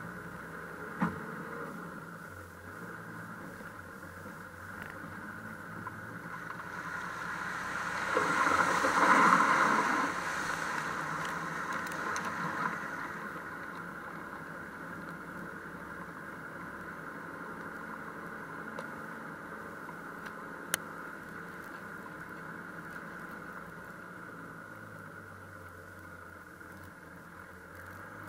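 Toyota Land Cruiser engine running steadily as it drives off-road over sand, heard from outside the body. About eight seconds in, a rushing splash swells and then fades over a few seconds as the vehicle drives through a water-filled puddle.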